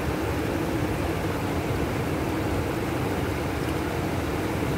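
Steady low rushing noise of a fast-flowing, flood-swollen river, with wind on the microphone.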